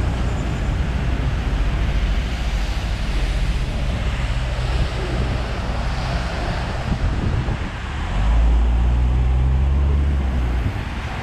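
Road traffic passing on a wet road, a steady hiss of tyres, with a low rumble that grows louder for a couple of seconds about eight seconds in.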